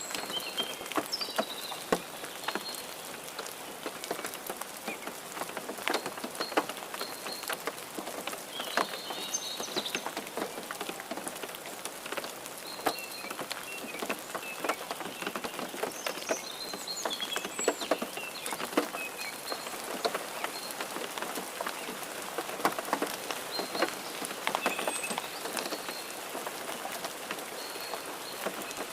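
Steady rain falling, with many individual drops ticking sharply on a surface. Short high chirps are scattered through it.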